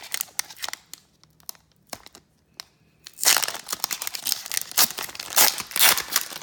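Foil wrapper of a 2017 Donruss Optic football card pack crinkling and tearing as it is opened: scattered crackles at first, then a loud stretch of crinkling from about three seconds in.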